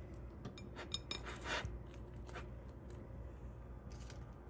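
Soft rubbing and rustling as a stick of butter is wiped over a stack of hot fried meat-filled flatbreads, with a few light clicks about a second in, over a low steady hum.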